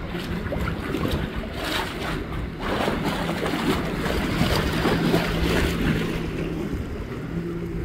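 A watercraft engine running with a steady hum that grows louder about three to six seconds in, over waves washing and wind buffeting the microphone.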